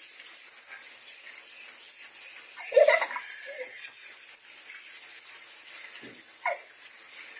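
Steady hiss of running water while soap is rinsed off a kitten, broken twice by a brief voice sound, about three seconds in and again near the end.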